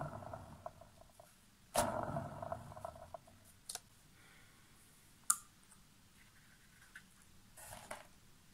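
Small painted canvas being turned by hand on a wooden tabletop. A short scraping rub comes about two seconds in and another near the end, with a few light clicks and knocks between; the sharpest click is about five seconds in.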